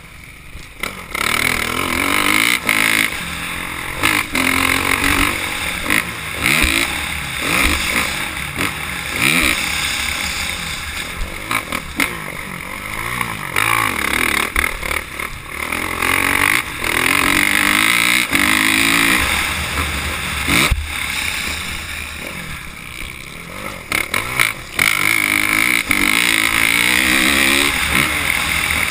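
Dirt bike engine heard from a camera on the rider, revving up through the gears and falling off again and again as the throttle is opened and closed around the track. A few sharp knocks cut through, the clearest about two-thirds of the way in.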